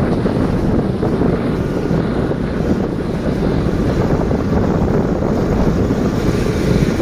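Steady, loud wind rumble on the microphone mixed with the noise of a moving vehicle, unbroken throughout.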